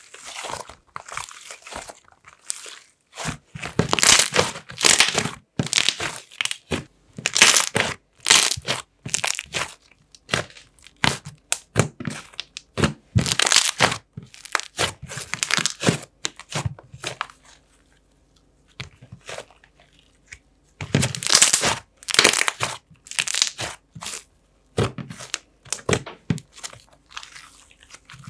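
Thick slime squished, stretched and folded by hand, giving irregular bursts of crackling sizzles and bubble pops, with a short quieter pause about two-thirds of the way through.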